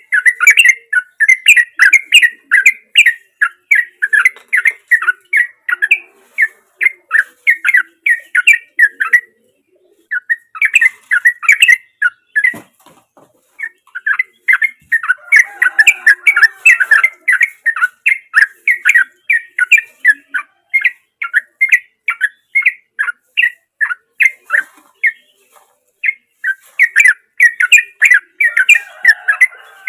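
Yellow-vented bulbul (trucukan) singing its bubbly, chattering song: long runs of rapid notes, about three a second, broken by a few short pauses.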